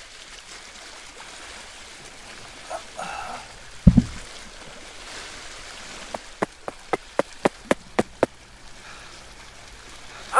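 Homemade sound effects: one heavy low thump about four seconds in, then a quick run of about nine sharp clicks, over a faint steady hiss.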